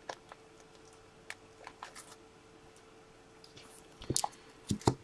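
Clear plastic trading-card holder being handled: scattered light clicks and taps, with a few louder knocks about four seconds in. A faint steady hum runs underneath.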